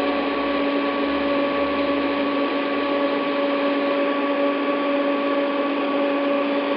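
TIG welding rig running after its start button is pressed: a steady electric hum with an even hiss underneath.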